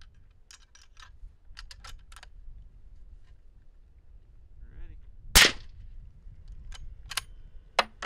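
A single shot from a suppressed 23-inch .308 rifle fitted with a Q Thunder Chicken suppressor, a sharp report about five seconds in. Several smaller sharp clicks come before and after it.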